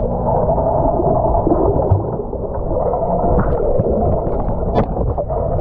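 Churning, gurgling water heard muffled, with the microphone under water.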